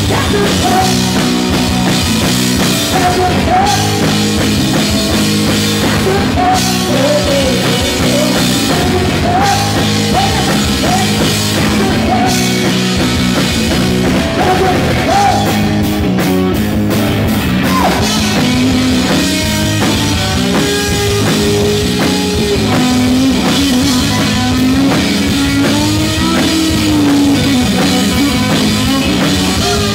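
Live rock band playing loud, with electric guitar, bass guitar and a drum kit.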